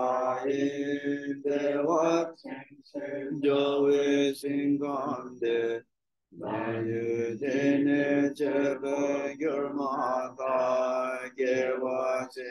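A lama's solo male voice chanting a Tibetan Buddhist prayer in a steady, rhythmic recitation, with a short pause for breath about six seconds in.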